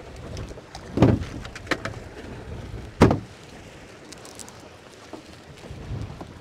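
Wind and water noise aboard an open boat running through choppy seas, with two sudden thumps, about a second in and about three seconds in.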